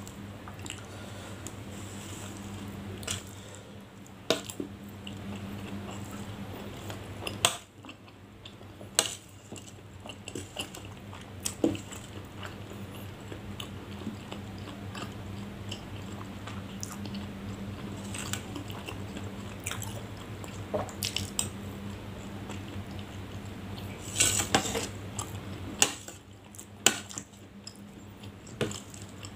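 Metal spoon clinking and scraping against a ceramic dish at intervals, with chewing of a soft, sauced starch snack in between. A steady low hum runs underneath.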